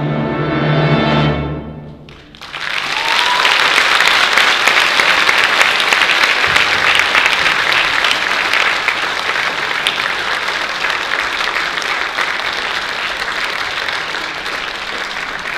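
A symphony orchestra holds the final chord of an operatic aria, with brass and strings, and it dies away about two seconds in. The audience then breaks into loud, sustained applause.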